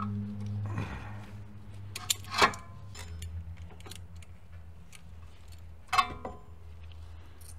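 Sharp metallic clinks and ticks of rusted rear brake caliper hardware being worked with hand tools to free the parking brake cable. The loudest clinks come about two seconds in and again near six seconds, over a low steady hum.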